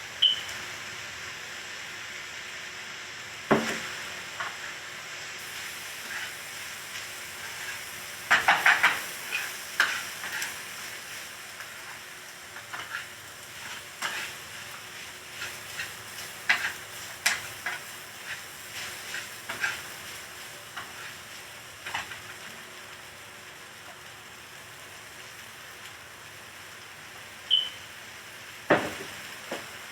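Food frying in a pan with a steady sizzle, and a utensil clinking and scraping against the pan. The knocks come in scattered strokes, a quick cluster about eight seconds in.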